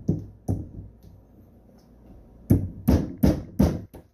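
Claw hammer striking a screwdriver held against the top of a Mercury outboard distributor, sharp metal-on-metal taps to drive out the keys that lock the top. Two taps near the start, then after a pause a quick run of about five strikes near the end, roughly three a second.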